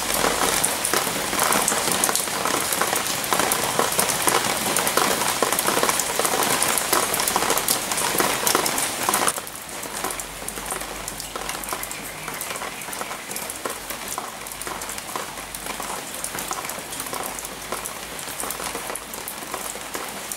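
Rain falling on rattan leaves: a dense, steady patter of many small drops. About nine seconds in it drops abruptly to a quieter patter.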